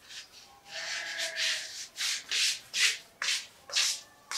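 Rhythmic rubbing strokes, about two a second, louder from about a second in.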